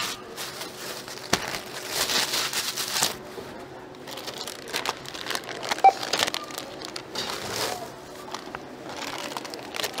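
Plastic shopping bags rustling and crinkling as items are handled and bagged at a store checkout, with scattered clicks and knocks and one sharp tap about six seconds in.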